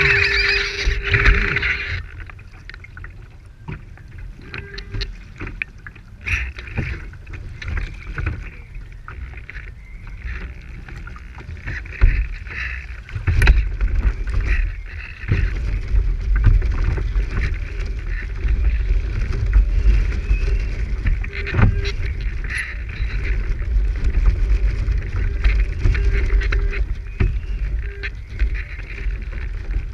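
Choppy water splashing and rushing along the hull of a radio-controlled IOM (International One Metre) yacht under sail, heard from a camera on its deck, with a low wind rumble on the microphone. A wave washes over the deck in the first two seconds, the loudest moment, and small slaps of water against the hull recur throughout.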